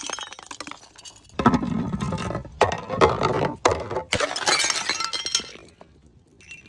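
Glass bottles breaking in several sudden crashes, shards crunching and clinking, dying away near the end.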